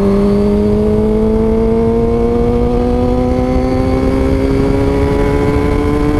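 Honda CBR600RR inline-four engine pulling steadily under throttle, its pitch climbing slowly and evenly through one gear, with wind noise underneath.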